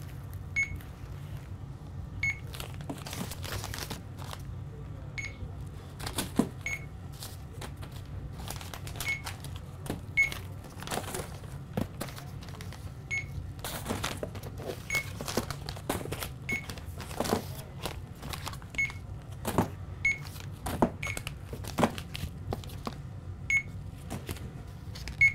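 Short, high electronic beeps, about fifteen at irregular intervals of one to three seconds, mixed with light clicks and knocks, over a steady low hum.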